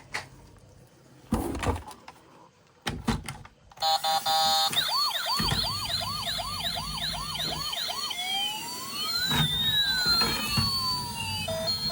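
A few handling knocks and clicks, then a battery-powered toy emergency vehicle's electronic siren sounding. It plays a short steady beeping, then a fast yelp of rising sweeps about three a second. After that come slower wailing glides that rise and fall, and near the end a pulsed beeping.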